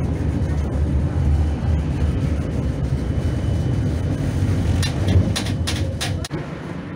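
Tram running along its rails: a steady low rumble of wheels and motors, with a quick run of sharp clicks about five seconds in.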